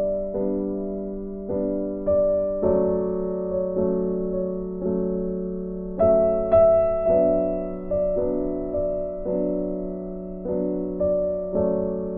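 Background piano music: soft chords struck about once or twice a second, each left to fade.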